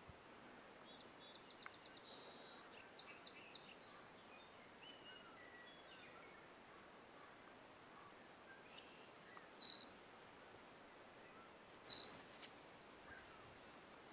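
Faint songbirds chirping and trilling over quiet outdoor background, with a louder high-pitched burst of song about eight to ten seconds in and a sharp chirp at about twelve seconds.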